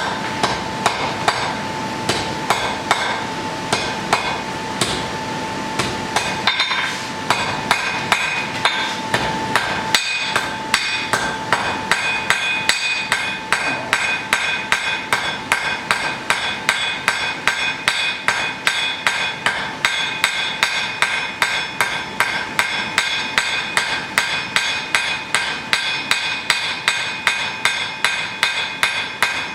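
Blacksmith's hand hammer striking hot iron on an anvil in a fast, steady rhythm of about three blows a second, each blow ringing, as a bodkin arrowhead is forged.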